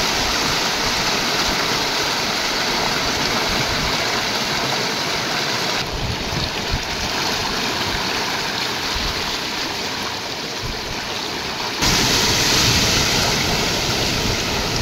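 Floodwater rushing and splashing through a street, a steady loud noise that changes abruptly twice, about six and twelve seconds in, and is slightly louder in the last few seconds.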